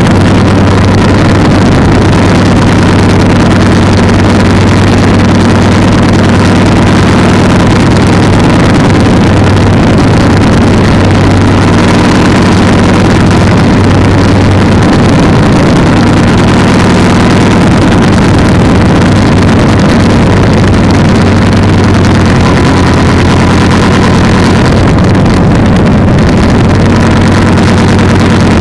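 Polini 190 single-cylinder two-stroke engine and propeller of an ultralight trike running loud and steady at constant power, with a broad rush of wind noise.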